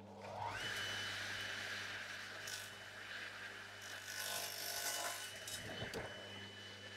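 Radial arm saw switched on: its motor and blade spin up about half a second in, the whine rising and then holding at a steady pitch, with a rougher stretch of noise around four to five seconds in as the blade trims the end of a wooden insert.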